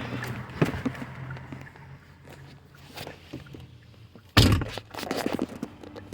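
A car door shutting with one heavy thunk about four seconds in, followed by brief rattling, among scattered clicks and knocks of handling, over a faint steady low hum.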